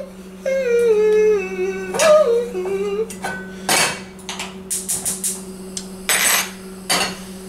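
A man hums a short wordless tune that steps down in pitch. Then metal pots and utensils clatter and knock several times as they are handled on the stove.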